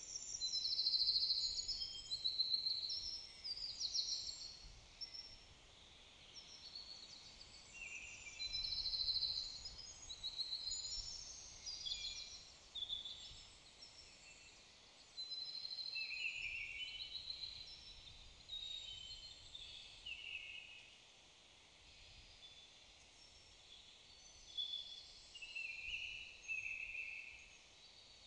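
Several songbirds singing in woodland, short trilled and warbling phrases overlapping one another throughout, over a faint low rumble.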